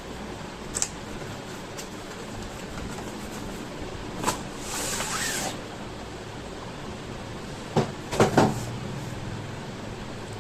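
Handling sounds of unboxing: a few single knocks and clicks, a rustle of packaging lasting about a second near the middle, and a quick cluster of knocks later on, over a steady hiss.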